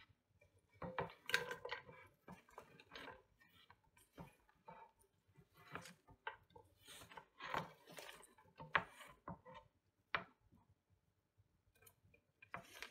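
Sliced raw onions being pushed off a wooden cutting board into a nonstick frying pan: irregular scrapes and knocks of the board against the pan, with the onion pieces rustling and dropping into the pan.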